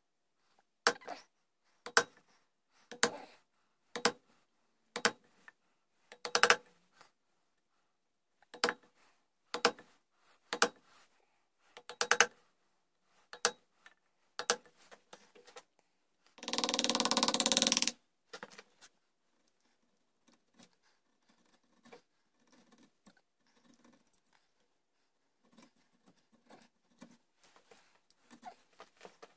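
Wooden mallet striking a wood chisel, sharp taps about once a second, cutting the outline of a flintlock rifle's sideplate inlet into the wooden gunstock. About two-thirds of the way through there is a noisy burst lasting about a second and a half, after which only faint light scrapes and clicks are left as the chisel is worked by hand.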